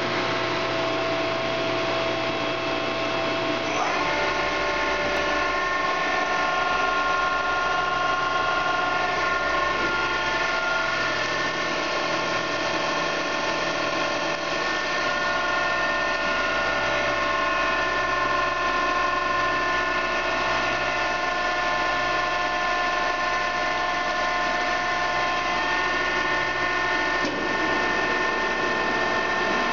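Mollart A175 CNC twin-spindle gun drill running: a steady, loud machine whine made of several tones, which shift in pitch about four seconds in.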